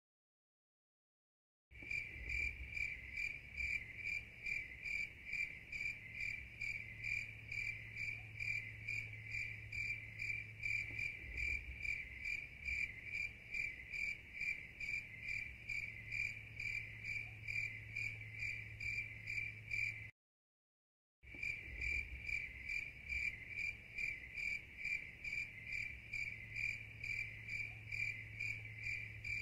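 An insect chirping in a steady, evenly pulsed call of about three to four pulses a second, faint, over a low steady hum. The sound cuts out completely for the first second and a half and again for about a second some twenty seconds in.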